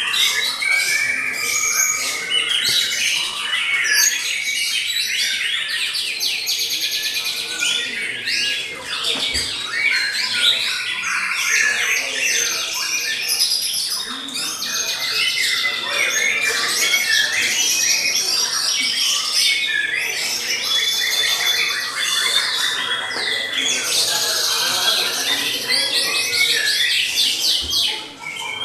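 White-rumped shamas singing without pause: a dense, overlapping stream of loud whistled phrases, rapid trills and sharp chirps from several birds at once.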